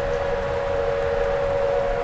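Tornado warning siren sounding one steady, unwavering tone.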